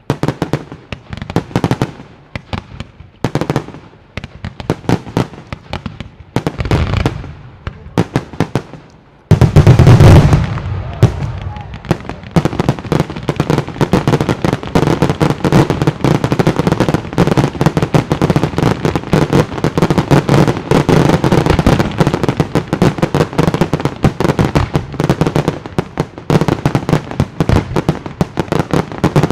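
Fireworks display: scattered shell bursts and crackle for about the first nine seconds, then a sudden loud barrage begins, with dense rapid bangs and crackling that run on without a break.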